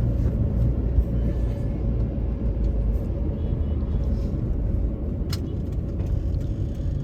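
Road noise and low engine rumble inside a moving car, with a faint steady hum and a single knock about a second in.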